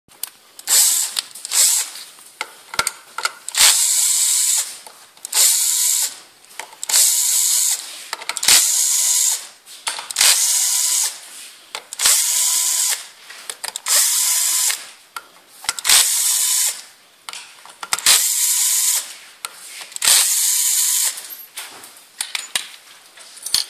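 Ratchet wrench clicking through about ten strokes, each about a second long and coming roughly every one and a half seconds, as it turns the bolts of a trial bike's exposed clutch.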